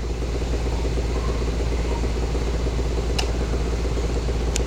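Steady low hum with an even background hiss, broken only by two faint clicks, about three seconds in and near the end.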